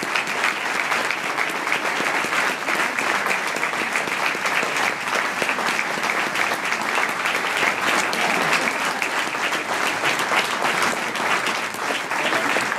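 Guests applauding, many hands clapping steadily.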